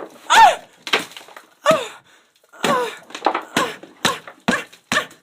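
A man's short, wordless grunts, each falling in pitch, coming faster and faster toward the end, mixed with sharp knocks.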